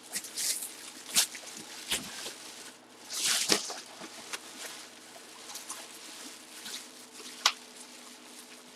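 Scattered handling noises: light rustling with a few sharp clicks and knocks, and a louder rustle about three and a half seconds in.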